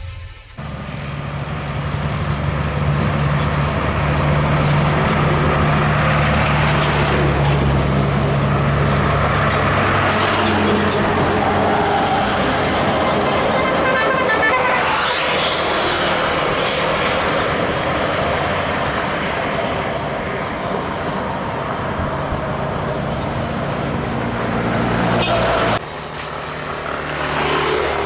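An intercity bus and a loaded truck driving past on a road. A steady low engine drone runs for the first several seconds, then engine and tyre noise swells and fades as they go by about halfway through. After a sudden change near the end, a motorcycle approaches.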